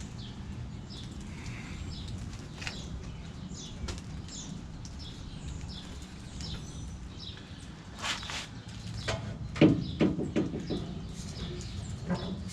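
A loose exhaust system being shaken by hand, knocking and rattling in a cluster of sharp metallic knocks over the last few seconds. The loose exhaust is the cause of the jingling noise from the rear of the car.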